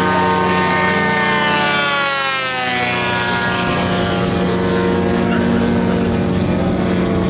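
The 150cc gas engine of a giant-scale RC Pitts Model 12 biplane is running in flight with a steady propeller drone. Its pitch falls between about one and three seconds in, then holds level.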